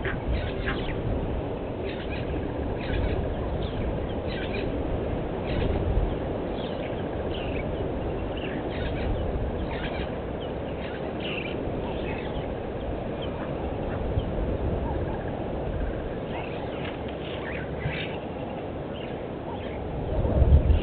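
Wild birds calling in short, repeated notes over steady outdoor ambience, with a low rumbling swell near the end.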